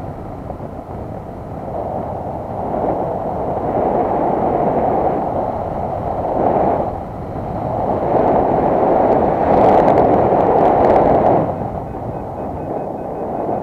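Wind rushing over the camera microphone of a paraglider in flight: a continuous rush that swells and eases, loudest from about eight to eleven seconds in.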